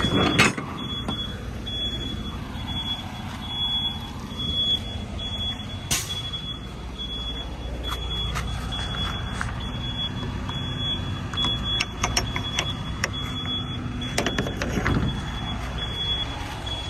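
Semi-truck diesel engines idling with a steady low rumble, under a high beep repeating at an even pace, typical of a backup alarm. There is a single sharp knock about six seconds in.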